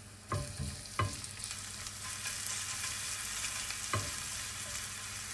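Minced garlic sizzling in hot olive oil in a nonstick frying pan, stirred with a silicone spatula. The spatula knocks against the pan three times: just after the start, at about a second, and near four seconds.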